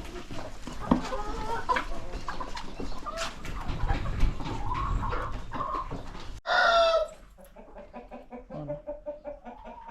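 A flock of chickens clucking and calling all together, with one loud call about six and a half seconds in. After that the clucking is quieter and sparser.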